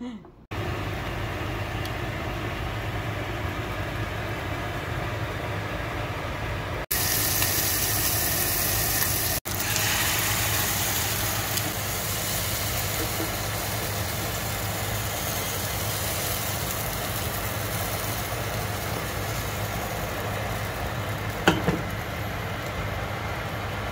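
Bánh xèo batter frying in a pan over a gas flame: a steady sizzling hiss with a low hum under it, which jumps louder and brighter for a couple of seconds about a third of the way in.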